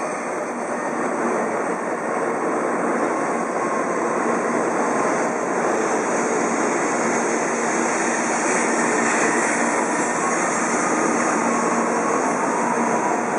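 N700 series Shinkansen train, upgraded to N700A standard, pulling into the station, its cars passing the platform with a steady rushing noise as it slows.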